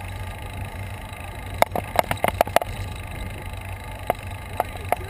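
Riding noise of a bicycle on a paved path: steady wind and road rumble on the action camera's microphone, with a quick cluster of sharp clicks and rattles about a second and a half in and a few more near the end.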